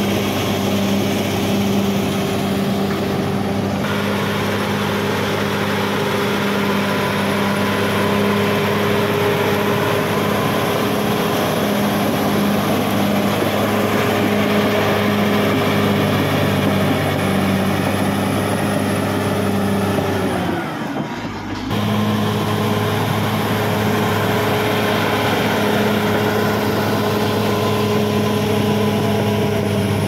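Caterpillar D6R XL bulldozer's diesel engine running steadily as the dozer pushes soil and vegetation with its blade. The sound cuts out briefly about two-thirds of the way through.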